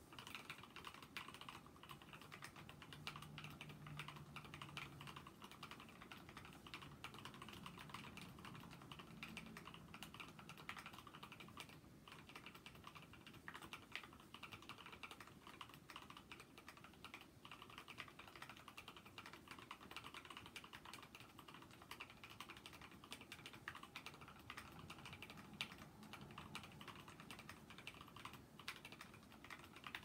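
A Drevo Gramr mechanical keyboard with Krytox-lubed Gateron Clear 35 g linear switches and XDA-profile keycaps, typed on continuously: a quiet, steady clatter of keystrokes.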